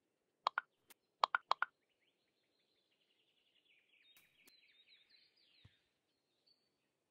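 Several short, sharp clicks in two quick groups, followed by faint twittering bird song.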